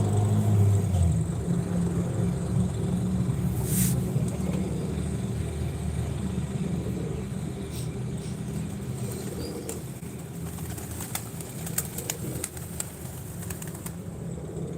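Pigeons cooing over a steady low rumble, with a sharp click about four seconds in and a run of short clicks later on.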